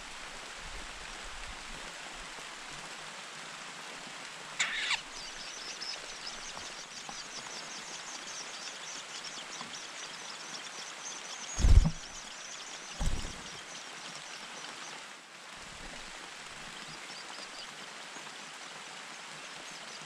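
Shrike nestlings begging at the nest with a rapid run of high, thin cheeps, over a steady background hiss. Two dull low thumps come a little over halfway through.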